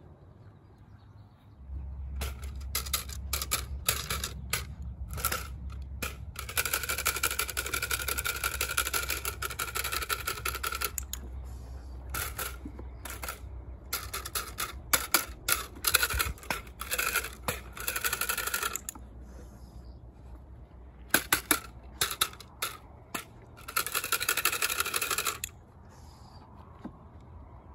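Wooden clatter stick shaken and tapped, giving runs of sharp clacks and three longer rattling stretches, the longest about four seconds a third of the way in and the last near the end.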